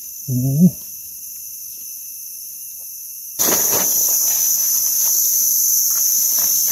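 Steady high-pitched chorus of forest insects. It jumps abruptly to a much louder level a little over halfway through and then holds steady.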